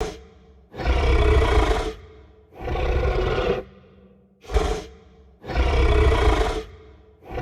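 Cartoon dragon roar sound effect, repeated: four loud roars about a second apart, the third one short.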